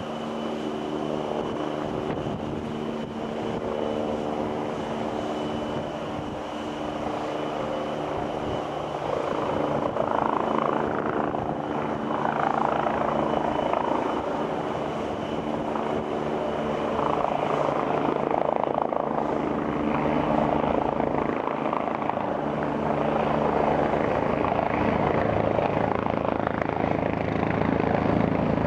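Agusta A109 twin-turbine helicopter approaching and descending to land, its rotor and turbine sound growing steadily louder as it closes in. Steady engine and gearbox tones carry the first several seconds, then the beating rotor noise takes over.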